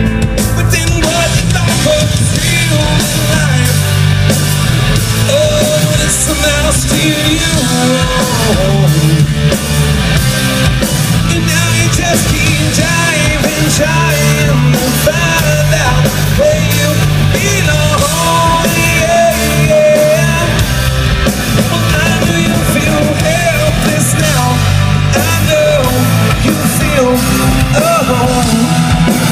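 Rock band playing live and loud: electric guitars, bass and drums, with a lead line bending in pitch above them.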